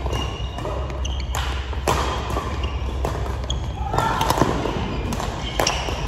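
Irregular sharp knocks and thuds in a large echoing hall, a few each second, with short high squeaks between them and voices in the background.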